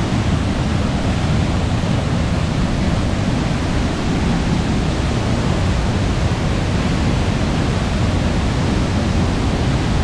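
Waterfall and fast-flowing river water rushing: a steady, deep rush with no break.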